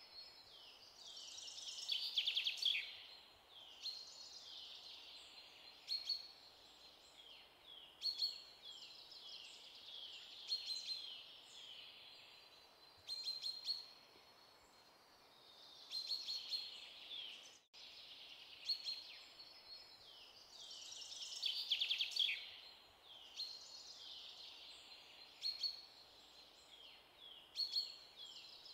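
Small birds chirping and twittering: quick high falling chirps and trills in bursts every couple of seconds, with a brief break about two-thirds of the way through.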